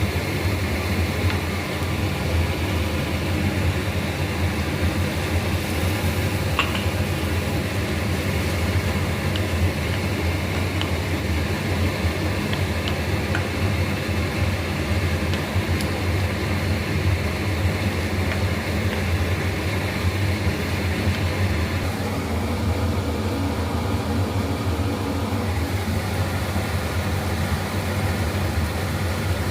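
A steady low mechanical hum over an even rushing noise, as from a motor or fan running. There are a few faint clicks, about seven and thirteen seconds in.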